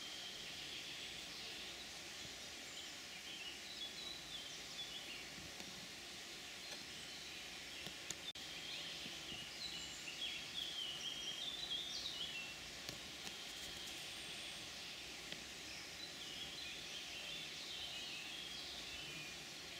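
Quiet woodland ambience: a steady hiss with small birds chirping in short, high notes, busiest about halfway through.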